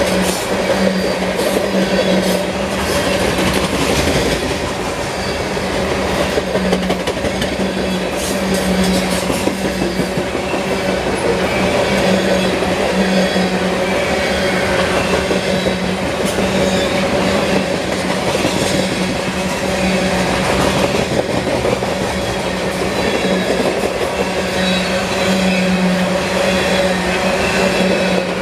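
Union Pacific freight train's covered hopper cars rolling past at speed: a continuous loud rumble with the wheels clicking over the rail joints and a steady low hum underneath.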